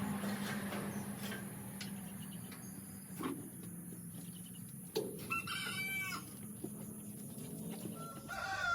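A chicken calls once for about a second, a little after halfway, over a low steady hum with a couple of faint knocks before it. Another animal call starts near the end.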